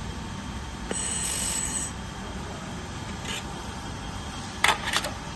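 Handheld fiber laser welder firing briefly about a second in, a high-pitched hiss lasting just under a second, over a steady machine hum. Near the end come two short, sharp noises, the loudest sounds here.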